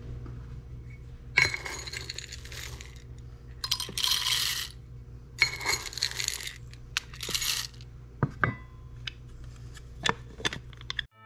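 Whole roasted coffee beans scooped from a glass jar and poured into a coffee grinder: four rattling pours, each about a second long, followed by a few light clicks.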